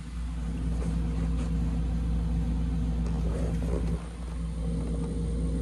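Steady low machine hum, dipping briefly about four seconds in.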